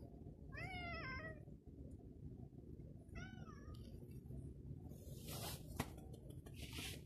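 Domestic cat meowing: short calls rising and falling in pitch about a second in and again about three seconds in. Rustling and a single sharp click follow in the last two seconds.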